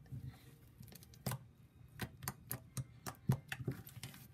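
Fluffy slime being kneaded and squeezed by hand, giving irregular sharp clicks and pops.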